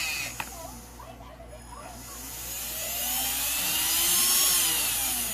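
Traxxas Titan 12T 550 brushed electric motor spun up on the throttle and let back down: a whine that rises in pitch and then falls, with a hiss above it. A sharp click comes right at the start.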